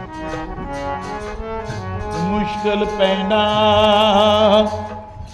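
Instrumental interlude of a Punjabi devotional dharna: a sustained melody over regular percussion strikes, swelling to a loud, wavering held note about three seconds in before dropping back near the end.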